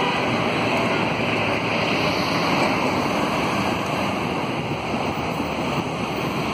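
Steady hiss of tyres and traffic on a rain-wet road as a Volvo B5RH hybrid city bus drives past, with no distinct engine note.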